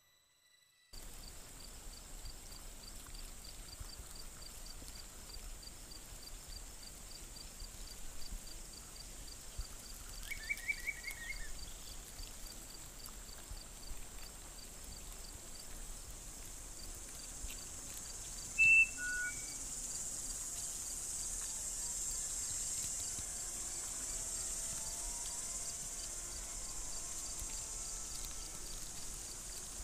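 Nature soundscape of insects: a steady high hiss with a regular cricket-like chirp repeating about three times a second, starting about a second in. A short bird-like trill comes around ten seconds in, and a brief louder two-note chirp a little past the middle.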